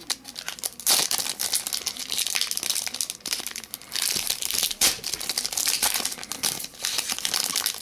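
Foil trading-card pack wrapper crinkling as it is handled and the cards are pulled out, with sharp loud crackles about a second in and again near five seconds.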